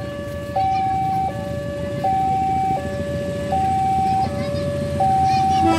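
Railway level-crossing warning alarm: an electronic signal alternating between a higher and a lower tone, each held about three-quarters of a second, sounding as a train approaches. A low haze of street noise runs underneath.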